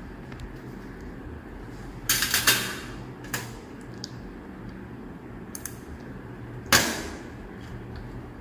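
Metal surgical instruments clicking and clinking against each other and the stainless steel table during suturing: a quick cluster of clicks about two seconds in, a few lighter ones after, and the loudest single clink near the end, over a steady low hum.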